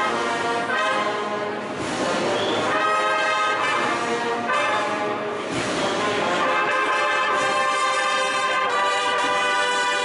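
Brass band of trumpets and bugles playing a processional march live, in held chords with short breaks between phrases about two and five and a half seconds in.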